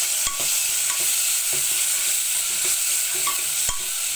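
Freshly added chopped tomato sizzling with onion and green chillies in hot coconut oil, with a metal spoon stirring and clicking against the pot now and then.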